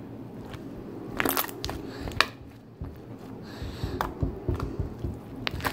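Thick butter slime packed with foam beads being pressed and poked by fingers on a glass board, giving sharp crunching crackles and pops over soft squishes. The crackles come in short clusters, with a run of quicker pokes in the second half.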